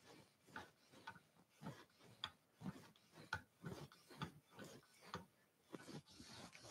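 Edge Pro guided sharpener's 1,100-grit diamond matrix stone stroked back and forth along a Spyderco Paramilitary 2 blade, with faint, short scraping strokes about twice a second.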